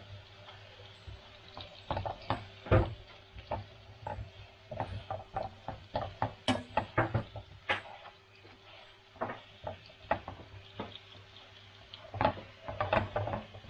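Hot fat spitting in a frying pan, an irregular run of sharp pops and crackles, thickest in the middle, with one loud pop about three seconds in.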